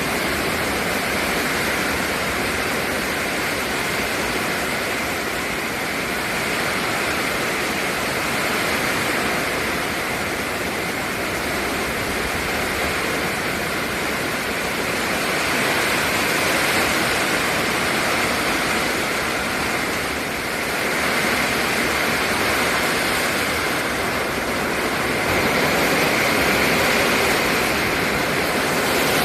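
Storm rain and wind: a steady, loud rush of downpour that swells louder now and then.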